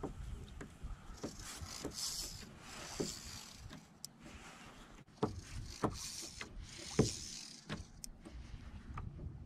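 Fly reel whirring in short bursts as line is wound in, with water slapping the kayak hull in short rising plops.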